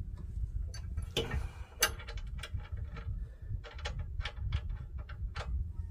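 Irregular metallic clicks and clinks of a wrench and bolts being worked by hand on a steering box brace, over a steady low rumble.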